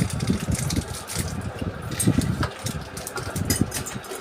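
Irregular knocks, clicks and rustling from a computer cabinet and its parts being handled.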